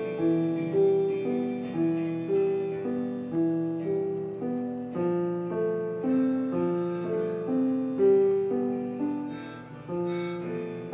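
Piano played at a slow, even pace, single notes and broken chords about two a second over sustained low tones, each note striking and fading.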